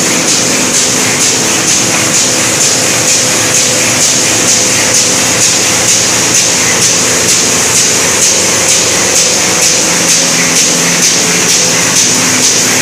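Envelope-making machine running: a steady mechanical clatter with a regular beat of about two strokes a second over a constant hum.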